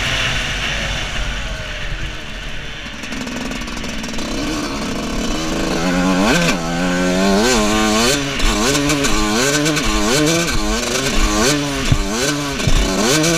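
125cc two-stroke motocross bike engine, heard from a helmet-mounted camera: for the first few seconds it is off the throttle with the pitch sinking, then from about halfway it revs up and drops back again and again in quick succession as the rider works the throttle down the track.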